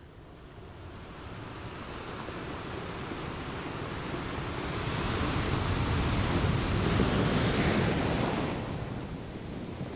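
Ocean surf rushing, with wind. It fades in at the start, swells to its loudest past the middle, then eases back near the end.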